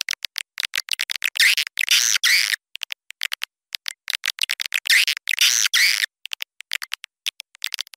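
Recorded edible-nest swiftlet calls played as a lure for a swiftlet house: rapid trains of short, high clicking chirps, with two longer chattering calls, one about a second and a half in and one about five seconds in.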